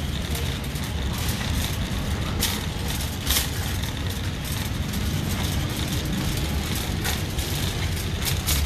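Shopping cart rolling over a concrete store floor: a steady low rumble with a few sharp rattles.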